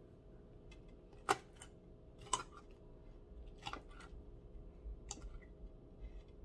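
Metal fork clicking against a plate as a piece of fried fish is cut with the fork's edge: four or five sharp clicks a second or so apart, the first the loudest.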